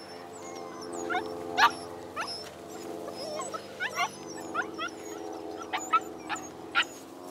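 Puppies yipping and whimpering in short, sharp squeaks, about a dozen of them, the loudest about a second and a half in, over a steady droning tone.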